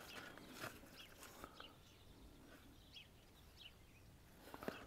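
Near silence outdoors: faint, scattered bird chirps in the distance, with a few soft clicks and taps as a watch box is handled, the loudest near the end.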